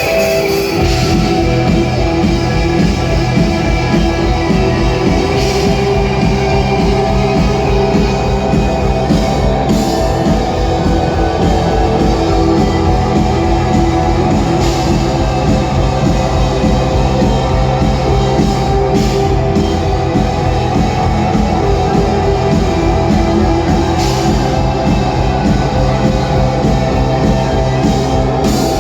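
Rock band playing live at full volume: electric guitars, bass and drum kit in a dense, continuous passage.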